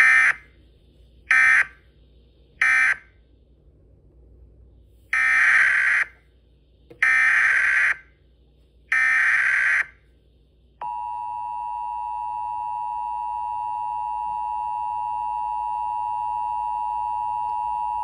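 Emergency Alert System tones. Three short screeching SAME data bursts come about a second and a half apart, then three longer bursts, and about eleven seconds in the steady two-tone EAS attention signal starts and holds for about eight seconds.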